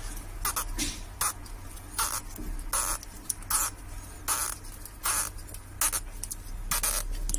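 Stretch-release battery adhesive strip peeling out from under a Xiaomi Mi 8 Lite battery as it is wound onto a screwdriver shaft, giving short hissing, tearing bursts roughly every three-quarters of a second over a steady low hum.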